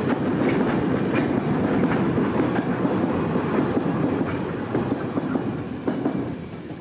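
Loaded stone hopper wagons of a freight train rolling past, with a steady rumble and the wheels clattering over rail joints. The sound fades near the end as the last wagon clears.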